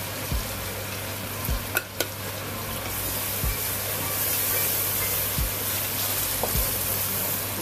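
Onions and tomato purée frying in a pot, with a steady sizzle, while a wooden spoon stirs the mixture, scraping through it. A couple of sharp knocks come about two seconds in.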